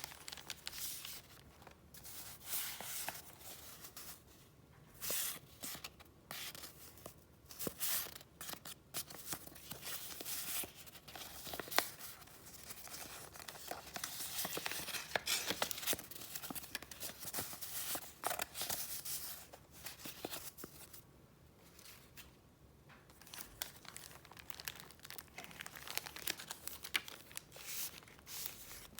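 Paper being handled close up: rustling and crinkling in irregular bursts, with short pauses between handlings.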